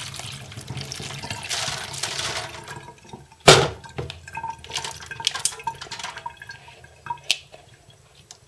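Salt brine poured from a bowl through a metal sieve of soaked sunflower seeds into a stainless kitchen sink, splashing for about two and a half seconds. A sharp knock comes about three and a half seconds in, then water drips from the sieve as the seeds drain.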